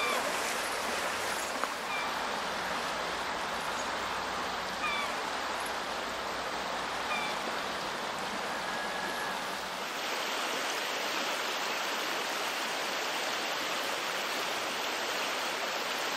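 Steady rush of a shallow river flowing over gravel, with a few short, faint bird chirps in the first half. About ten seconds in, the water sound shifts to a brighter hiss.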